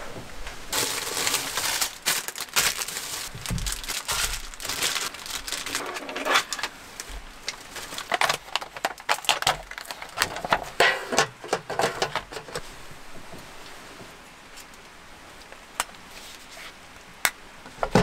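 Crinkling and crackling of a clear plastic package and a thin aluminium foil pot being handled and unwrapped, in irregular bursts, then a few light clicks near the end.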